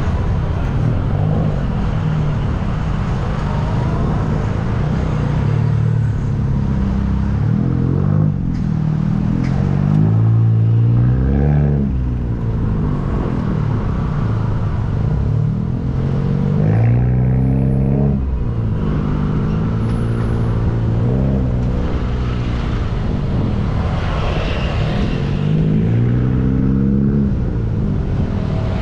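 Busy road traffic: vehicle engines passing one after another, their pitch rising and falling repeatedly as vehicles speed up and go by, over a steady low rumble.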